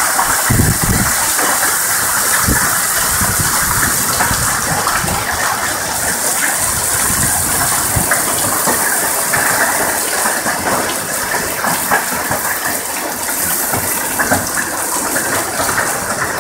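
Heavy rain mixed with hail pelting down: a loud, dense hiss full of small sharp ticks.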